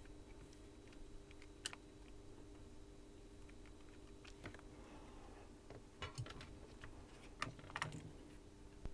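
Faint scattered clicks and taps of a soldering iron and desoldering braid on a circuit board, over a steady low hum. A few louder clicks come late, as the tools are lifted away and set down.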